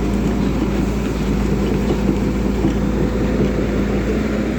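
Volvo crawler excavator's diesel engine running steadily with a constant low drone.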